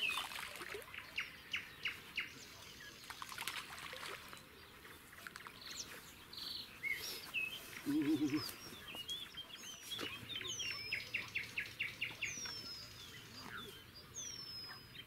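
Several wild birds singing: rapid chirping trills, scattered short chirps and, in the second half, a repeated downward-sliding whistle about once a second. About eight seconds in there is one short, low call, the loudest moment.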